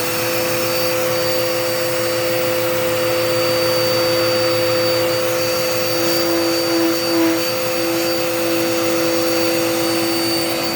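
Dirt Devil Power Max vacuum cleaner's motor running steadily with a whining hum, which wavers briefly in pitch a little past the middle.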